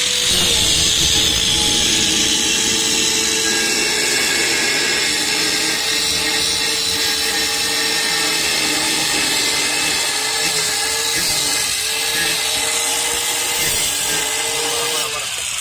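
Electric angle grinder running and cutting through a metal bar. It gives a steady whine with a grinding hiss, the pitch dips briefly a few times as the disc bites, and it stops near the end.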